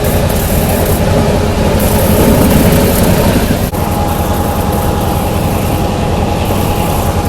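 Passenger train running, a loud, steady rumbling noise with fast flutter in the low end. It breaks briefly about halfway through and continues with a steady whine over it.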